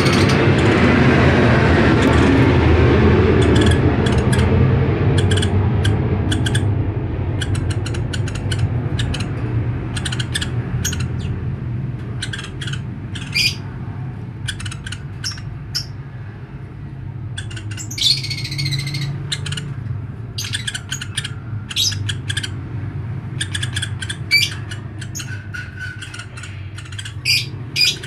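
Woodpecker giving short, sharp high call notes, singly and in quick clusters, at irregular intervals, with a longer falling call about 18 seconds in. A steady low rumble runs underneath, loudest in the first few seconds.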